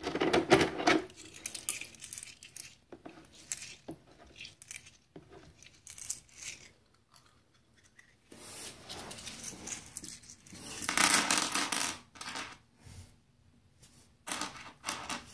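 Hand sloshing in shallow water in a tub and scooping out small steel screwdriver bits, which clink against each other and the tub, in scattered clicks and short rattling bursts. The loudest rattle comes about eleven seconds in, and a shorter one comes near the end as the bits are set down.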